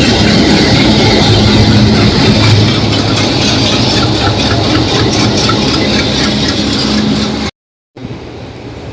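A train passing close by, its locomotive giving a loud, steady hum with a faint clatter over it. Near the end the sound cuts off abruptly and a much quieter steady rumble follows.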